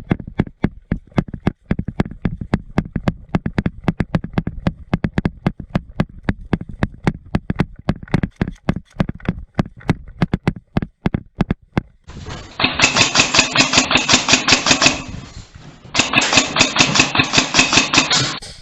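Fast, irregular run of sharp clicks and thumps. About two-thirds of the way in, an airsoft gun fires on full auto in two long bursts of rapid, even shots, with a short pause between them.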